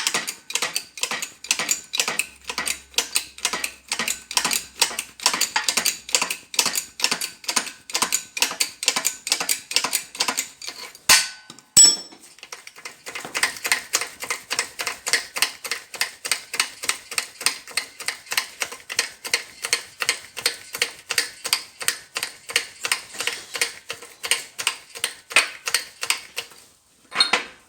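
A ratchet wrench clicking at an even pace, about three clicks a second, as it turns the screw of a puller pressing a leaf-spring shackle bushing out of its eye. It pauses briefly with a couple of knocks about eleven seconds in, then resumes.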